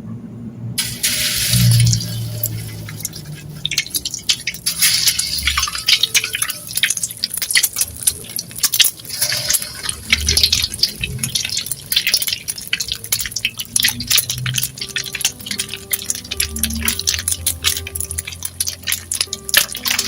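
Food sizzling and crackling in hot frying oil, starting suddenly about a second in and popping densely throughout, with soft background music underneath.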